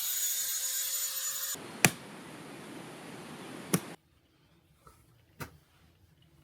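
A steady hiss that cuts off abruptly, then two sharp clicks about two seconds apart, followed by quiet with one fainter click.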